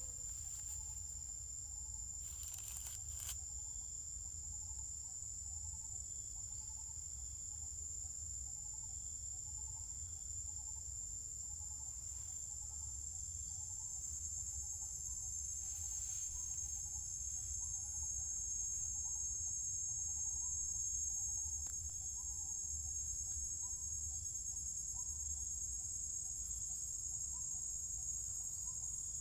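Insects droning: a steady, unbroken high-pitched buzz, with a low rumble underneath.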